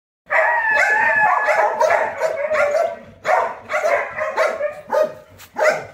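Several dogs barking and yelping at once: a dense run of overlapping barks for about three seconds, then separate barks about every half second.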